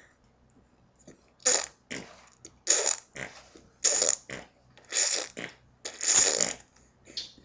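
Imitation fart noises blown with the lips, a string of about seven short bursts roughly one a second.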